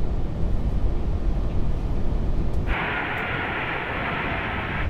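Airbus A380-800 on short final: a steady low rumble of airflow and engines in the cockpit. A bit under three seconds in, the sound switches abruptly to an even, steady hiss, the jet noise of the approaching A380 heard from outside.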